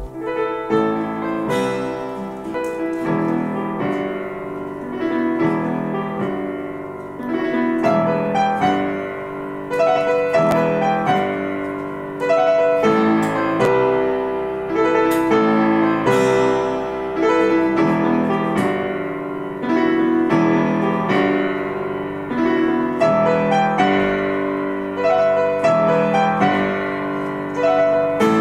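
Upright piano playing an instrumental piece in chords and melody, accompanied by an acoustic guitar.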